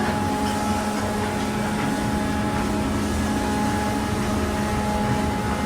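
Steady hum of sawmill machinery running, a few constant tones over an even rumble, with no change.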